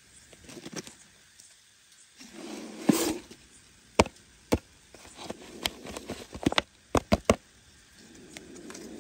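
A clear plastic jar being handled and set down, with a run of sharp plastic clicks and knocks, a quick triple near the end as its screw lid comes off, between stretches of rustling footsteps on dry ground and grass.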